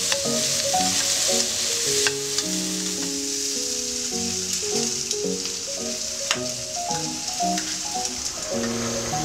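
Diced vegetables sizzling in a wok as a spatula stirs them, with a sharp click of the spatula against the wok about two seconds in and again about six seconds in.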